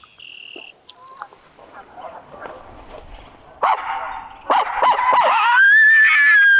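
Imitation coyote howl blown into cupped hands as a locator call to get turkeys to gobble: a few sharp yips and barks, then a long howl that rises and is held on one note.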